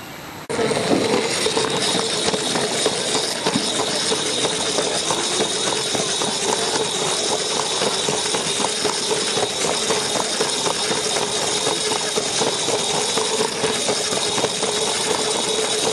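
Model train's small electric motor running with a steady whine while its wheels rattle along the track, heard close up from on board. It starts abruptly about half a second in.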